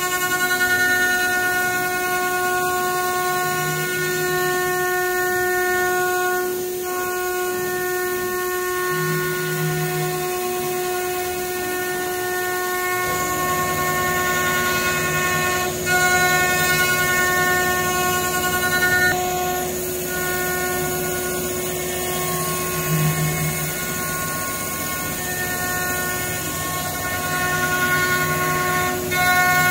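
High-speed spindle of a 5-axis CNC router running with a steady high whine while it machines a wooden chair part. About halfway through, a heavier, rougher cutting noise joins the whine.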